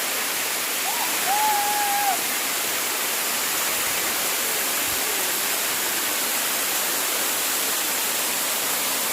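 Steady rushing noise of a waterfall, an even hiss that does not change. A short, slightly wavering pitched call, like a voice, rises over it about a second in.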